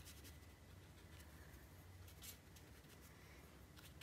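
Near silence: room tone with a few faint, soft strokes of a watercolour brush on paper.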